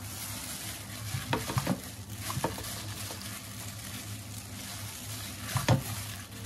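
Green onions being tossed by hand through thick red-pepper kimchi paste in a stainless steel bowl: wet squelching and mixing, with a few sharp wet smacks about a second in and again near the end, the last the loudest. A steady hum and hiss lie under it.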